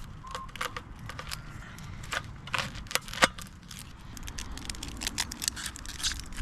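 Knife cutting into an onion: a run of irregular crisp clicks and crackles, coming faster in the second half, with one sharper snap about three seconds in.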